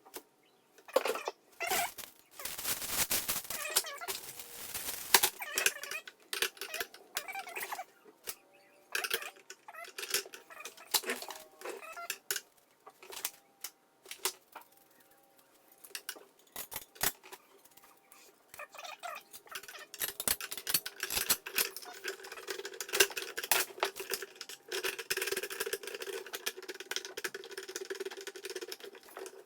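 Handling noises from assembling an electric lawn dethatcher: irregular clicks, knocks and rustling of parts, growing into denser, more continuous rustling in the last third.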